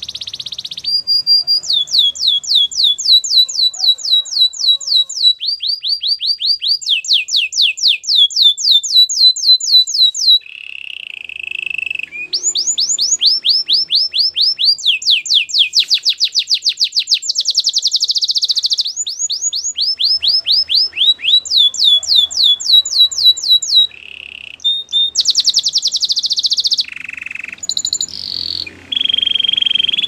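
Domestic canary singing a long song of rapid trills, each phrase a quick run of the same sweeping note repeated many times a second, shifting pitch from phrase to phrase. A few lower, buzzy phrases break in near the middle and toward the end.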